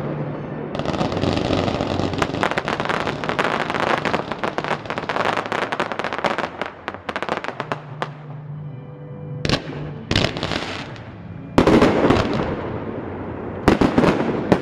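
Fireworks display: a dense run of rapid crackling and popping for the first six or seven seconds, then it thins out, and a few loud single bursts go off in the second half. Music plays underneath.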